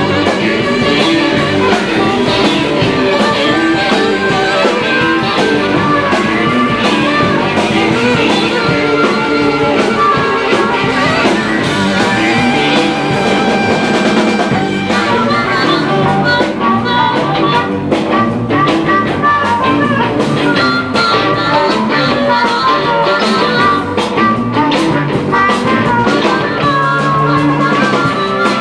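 Live blues-rock band playing, with guitar and drum kit.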